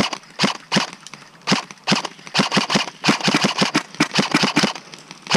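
Airsoft rifle firing in short bursts and single shots: sharp clicking shots in quick runs of two to eight, about eight a second at the fastest, with short pauses between bursts.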